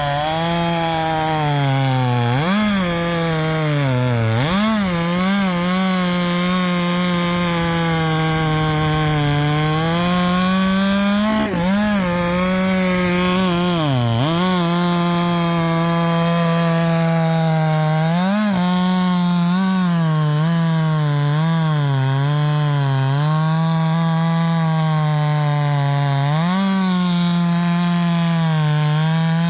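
Husqvarna 564 XP two-stroke chainsaw running at full throttle while cutting wood, its engine pitch sagging and recovering several times as the chain is pressed into the cut.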